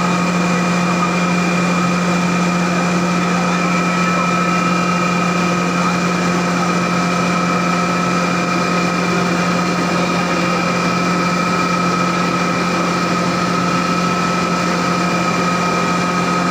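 Rice husk grinding plant running: the belt-driven husk grinder and its cyclone blower make a steady, loud machine hum with a constant high whine above it.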